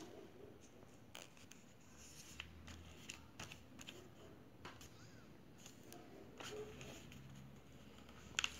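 Faint paper rustling and scattered small clicks from fingers pressing and smoothing a sticker onto a paper album page, with a sharper tap near the end.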